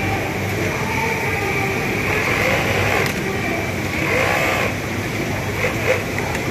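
Steady mechanical drone of industrial sewing machines running, with a Siruba overlock machine stitching a ribbed waistband onto a garment body. Faint voices come through the machine noise about four seconds in.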